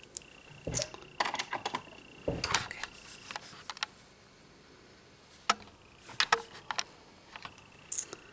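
Nail polish bottles and their caps being handled and set down: scattered light clicks and taps, in clusters.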